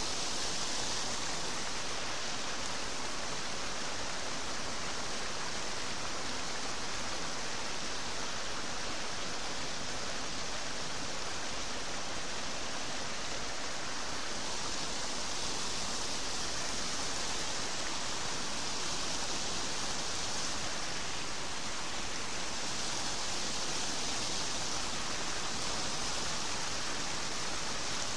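Turbulent white water churning out of a canal outflow, a steady, unbroken rush.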